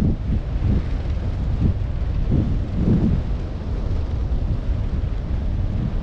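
Wind buffeting the microphone of a camera carried aloft on a kite line: a loud, uneven low rumble that surges in gusts, with a stronger gust about three seconds in.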